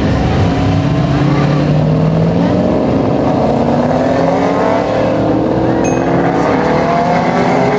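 Two drag-racing cars, a classic VW Beetle and a red car, accelerating hard away from the start line, engine pitch climbing steadily.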